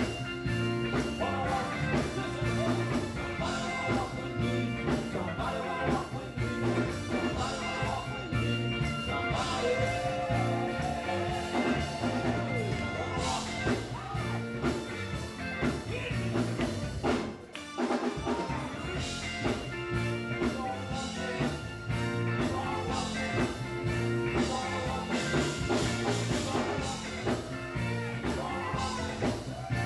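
Live gospel quartet music: male voices singing over electric guitar, keyboard and a drum kit. A short drop in loudness comes a little past halfway, then the band plays on.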